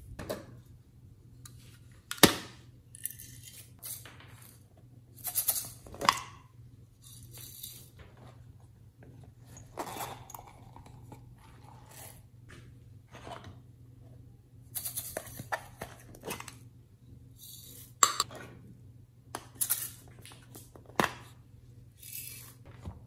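Small plastic slime containers and packaging being handled over a glass dish: scattered clicks, taps and crinkling rustles, with sharp clicks about two seconds in and about eighteen seconds in.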